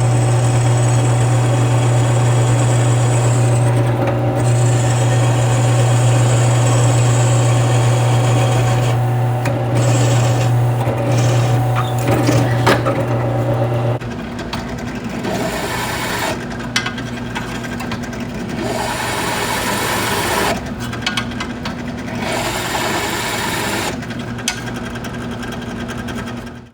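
An electric power tool motor running with a steady hum while steel is ground. About halfway through the hum drops and the grinding becomes lighter and intermittent.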